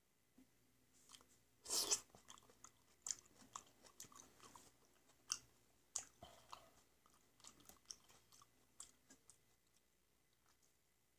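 Mouth sounds of a person eating peeled seedless black grapes: a loud burst of wet mouth noise about two seconds in, then irregular chewing and short smacking clicks that die away near the end.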